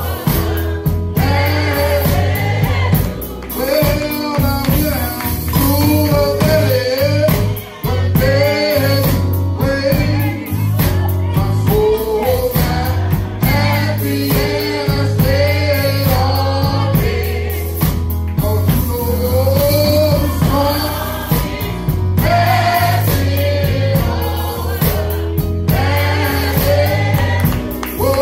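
Live gospel song: a man sings the lead into a microphone while the congregation sings along, over a steady bass accompaniment with hands clapping along.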